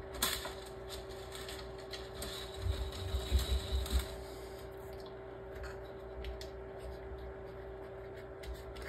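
Powered-on Creality Ender 3 V3 SE 3D printer humming steadily, with small clicks and rubbing as filament is fed by hand through its filament runout detector.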